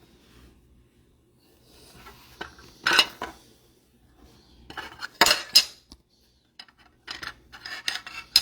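Trading cards being handled on a table, giving a few short scraping and clicking sounds with pauses between them.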